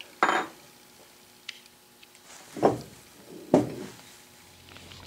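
A few separate knocks and clinks of metal on metal as a wrench is put down and the lathe's cast-iron compound rest is handled on the steel angle plate. The louder knocks come about a quarter second, two and a half and three and a half seconds in.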